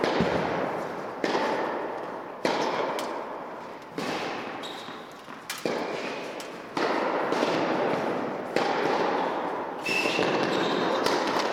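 Tennis ball impacts, racket hits and ball bounces, about eight sharp knocks each ringing on in a long echo of a large indoor tennis hall.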